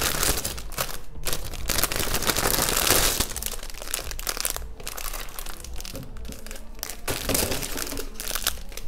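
Packaging crinkling and rustling as a parcel of supplies is unpacked by hand, with many small crackles; loudest in the first three seconds, softer after.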